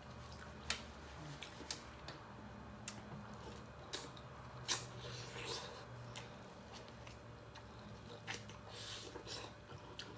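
Close-up eating of Dungeness crab: scattered sharp cracks and clicks of shell with wet squishing and chewing in between.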